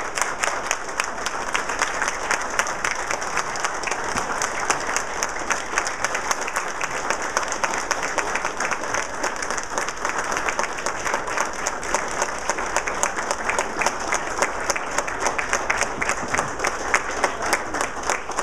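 Sustained applause from a standing audience clapping in a room, steady throughout.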